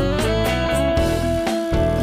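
Background music featuring guitar, with a steady beat.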